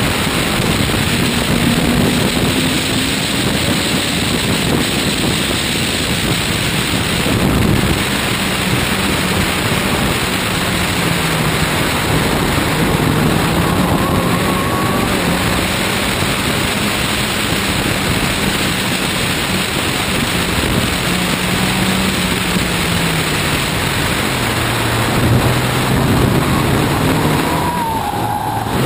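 Race car engine running hard at speed, mixed with heavy wind and road noise on a camera mounted outside the car. The engine note rises and falls through the corners and drops lower near the end.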